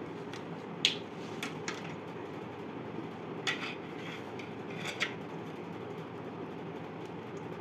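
A few light clicks and taps as small cardboard pieces and scissors are handled on a wooden tabletop, the sharpest about a second in and a pair near five seconds, over a steady low background hum.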